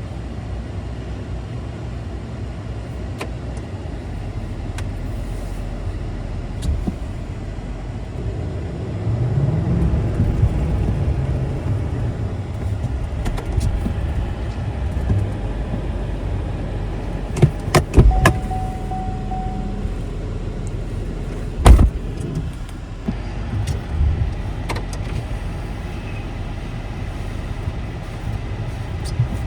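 Pickup truck engine running under load on icy snow, revving up and easing off about ten seconds in as the truck struggles for traction. A few sharp knocks stand out near the middle.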